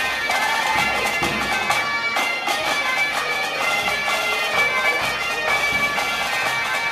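Bagpipe music: steady held drone tones under a piped melody.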